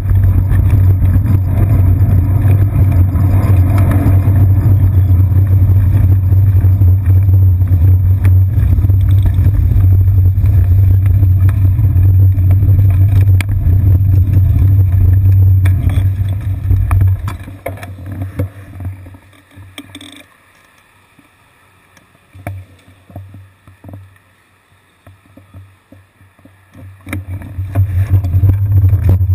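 Steady loud rumble of wind and road vibration on a seat-post-mounted GoPro Hero 2 as the bicycle rides along a city street. About two-thirds of the way through it dies away as the bike slows and stops, leaving faint street noise with a few light clicks, and it comes back near the end as riding resumes.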